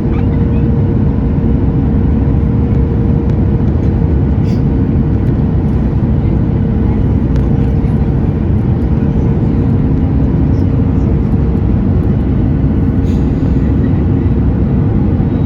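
Steady cabin noise inside a Boeing 737 MAX, its CFM LEAP-1B engines running with the rush of airflow, and a steady hum beneath.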